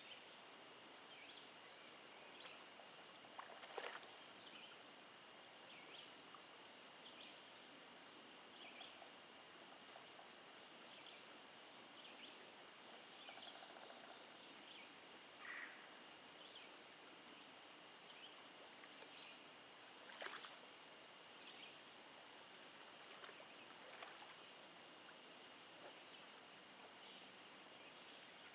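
Faint summer riverside ambience: a steady high-pitched drone with scattered short chirps over it, and a couple of faint clicks.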